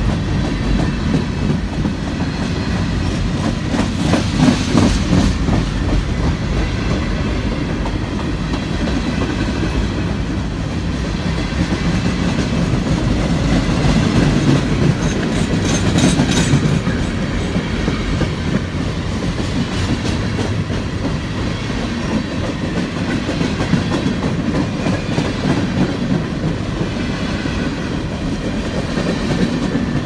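Freight train of open-top hopper and gondola cars rolling past close by: a steady rumble of steel wheels on rail, with clicks and clatter as the wheels cross rail joints.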